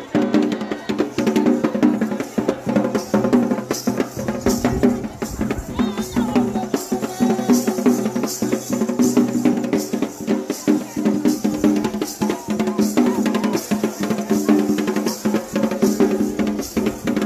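Shilluk traditional dance music: drums beating a fast, steady rhythm under a group of voices singing together.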